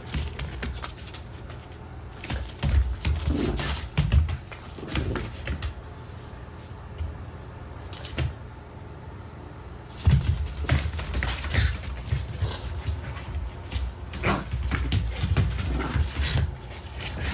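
Mame shiba dogs playing, with short dog vocal sounds and irregular scuffling knocks and bumps.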